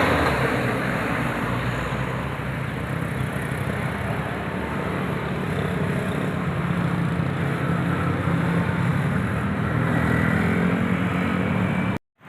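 A bus engine running steadily, with road and traffic noise, growing a little louder toward the end and then cutting off abruptly.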